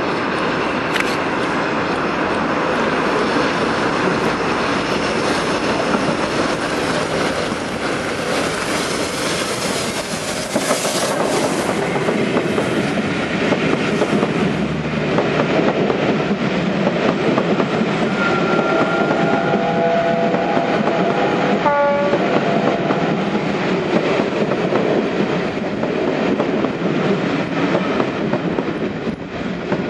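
A train running past on the line, its wheels clattering over the rail joints. From about 18 s in, the train sounds its warning horn or whistle for several seconds, in more than one tone.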